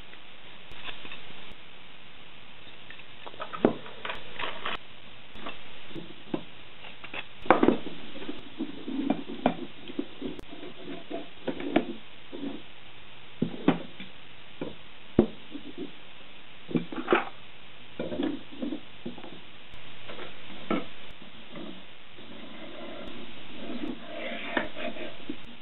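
Steel threaded rods, nuts and washers clinking and knocking against each other, the tabletop and plastic printed parts as a 3D printer's rod frame is assembled by hand. The knocks come at irregular intervals, with a sharper one about seven seconds in and another near the middle.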